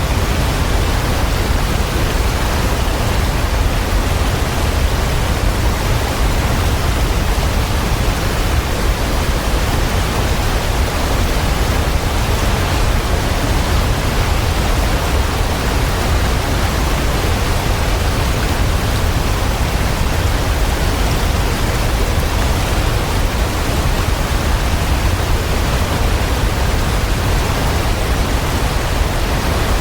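Waterfall: falling water in a steady, unbroken rush with a deep rumble underneath.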